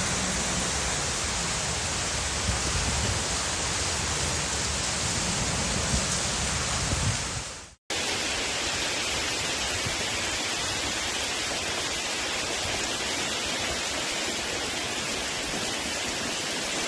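Steady, dense noise of a heavy storm downpour, in two clips with a sudden cut about eight seconds in.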